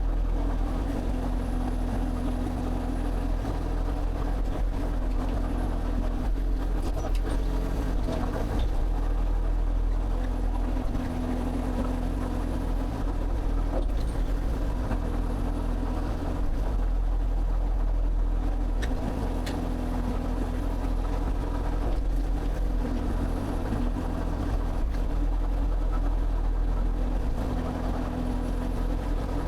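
Excavator's diesel engine running steadily, its tone and level swelling slightly now and then.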